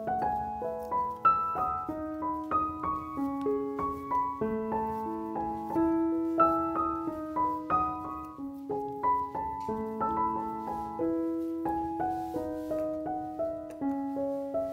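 Background piano music: a gentle melody of single notes over held lower notes.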